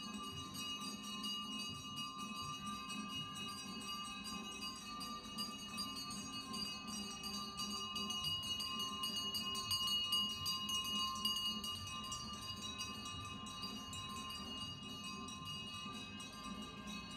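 Background music of sustained, bell-like chime tones held steadily, swelling a little about halfway through.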